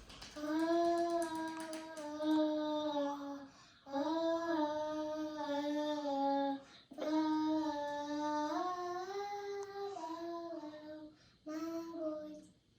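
A child singing long held notes in about four phrases of two to three seconds each, stepping between a few pitches, with short breaks between the phrases.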